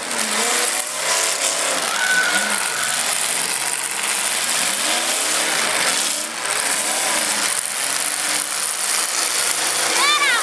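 Several demolition-derby pickup trucks' engines running and revving, rising and falling in pitch, under a dense, noisy wash.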